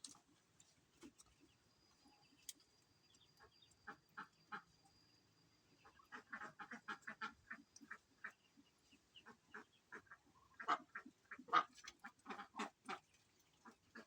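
A bird giving short, harsh, duck-like calls in quick runs, scattered at first, then busier past the middle and loudest near the end.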